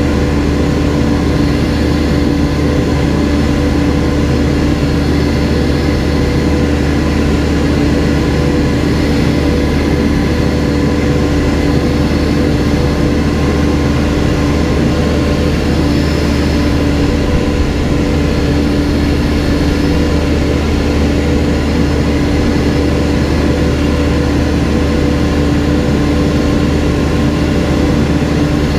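Backhoe's diesel engine running at a constant speed, a loud, steady drone with no revving or knocks.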